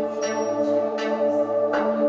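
Instrumental introduction of a song: sustained chords with bell-like chimes struck about every half second.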